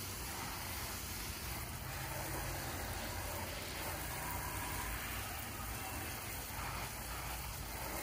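Water spraying onto a window air conditioner unit, rinsing bleach and soap cleaner off its coils: a steady rushing spray.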